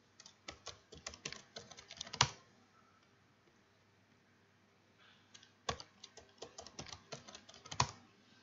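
Computer keyboard typing a password in two runs of quick keystrokes, each run ending with a harder keystroke; the first run ends about two seconds in, and the second starts about five seconds in.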